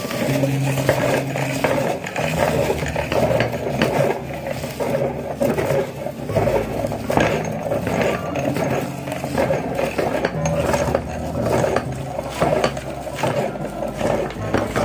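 Meat grinder running and crunching brittle food, with a dense stream of scraping, crackling clicks.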